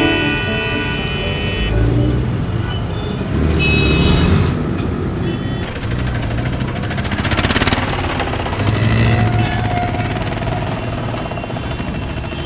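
Road traffic noise, with vehicle engines running. It comes in abruptly as music cuts off.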